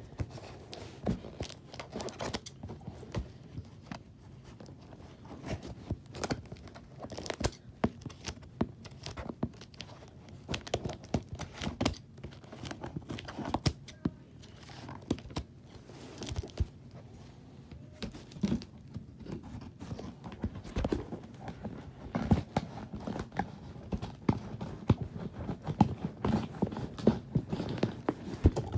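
A cardboard shipping box being opened and unpacked by hand: irregular rustling, tearing and knocking.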